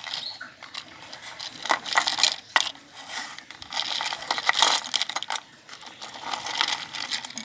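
Small hard-plastic toys clattering and clicking against each other and a plastic basket as they are stirred and shuffled, in irregular bursts.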